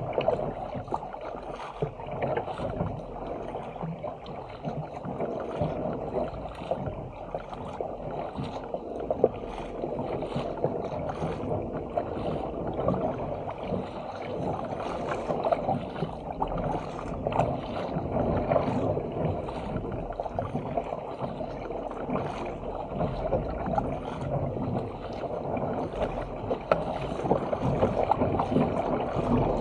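Sea water rushing and splashing along the hull of a Stealth 457 fishing ski as it is paddled through choppy water, with irregular splashes from the paddle blades.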